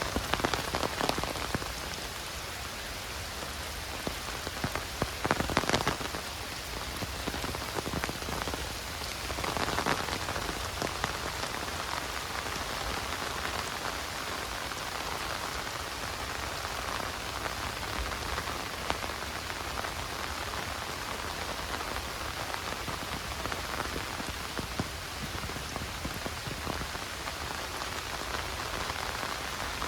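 Heavy rain falling steadily, a dense patter of drops, with a few brief louder spells of close drop hits in the first ten seconds.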